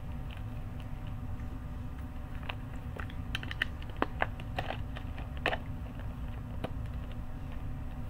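Scattered light clicks and taps from hands handling things close to the microphone, most of them bunched in the middle, over a steady low hum.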